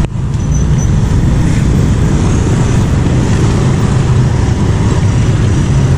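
Slow road traffic passing close by: motor scooters and a small box truck crawling over a railway level crossing, a steady low engine hum.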